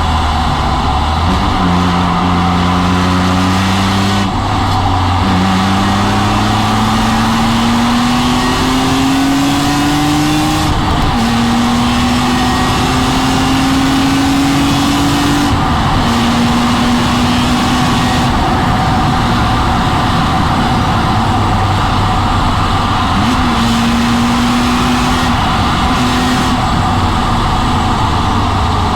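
BMW M3 E46's straight-six engine at speed from inside the car, revs climbing in long pulls and dropping back several times at gear changes or lifts, over steady wind and road noise.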